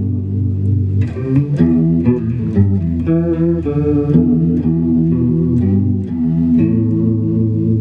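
Electric guitar, a Les Paul, played through an MXR Analog Chorus pedal: ringing chords and picked single notes with a chorus shimmer, and a new chord struck near the end.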